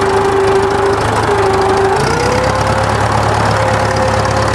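David Brown 880 tractor's diesel engine running, with a steady whine over the engine hum. About two seconds in the whine steps up in pitch and the low hum gets stronger.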